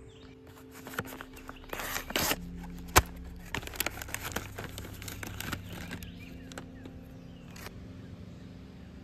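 Resealable pouch being opened and handled, crinkling and rustling with sharp clicks. The loudest click comes about three seconds in. A faint steady low hum runs underneath.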